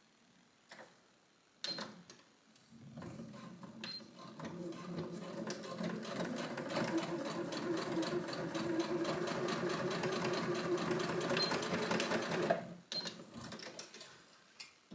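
Computerised domestic sewing machine stitching fabric: a few clicks, then a fast, even run of needle strokes that builds up from about three seconds in and stops abruptly near the end.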